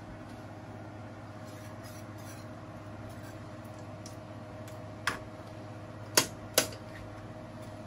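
Three sharp metal clinks of kitchen utensils against cookware, about five, six and six and a half seconds in, the last two loudest, over a steady low hum.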